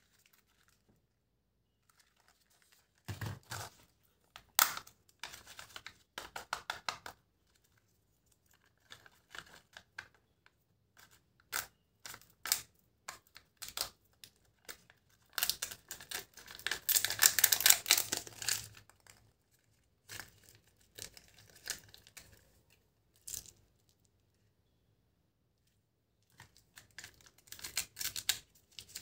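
Candy wrappers being torn open and crinkled by hand. The sound comes in irregular bursts of crackles and clicks with pauses between them, and a longer stretch of tearing around the middle.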